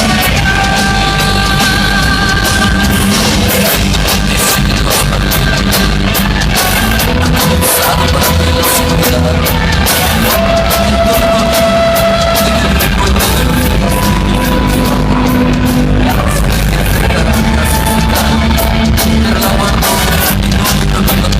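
Loud recorded dance music played through a sonido's sound system, with a steady beat, held melody notes and some singing.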